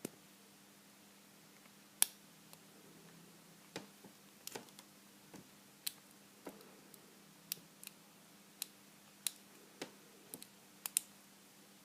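Irregular sharp metallic clicks of a lock pick working the pin tumblers of a vintage Corbin padlock, about one or two a second and uneven in loudness, over a faint steady low hum. The pins keep dropping back and the lock resists being picked.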